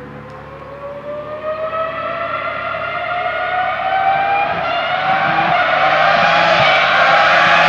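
A Ferrari racing car's engine accelerating as it approaches, its pitch climbing steadily in one long pull while it grows louder.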